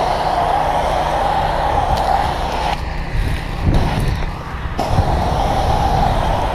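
Water jet from a fire hose nozzle hissing as it is sprayed onto smouldering grass. The spray cuts out about three seconds in and comes back about two seconds later.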